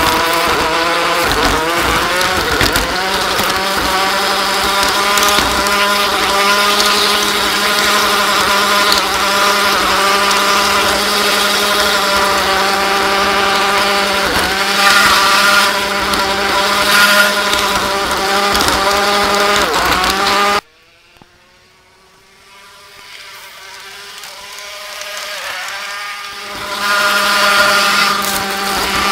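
Motor and gearing of a garden-scale model train running at speed, a steady whine with several pitched tones that shift slightly as it goes. About two-thirds of the way through it cuts out suddenly, then builds back up over a few seconds to full level.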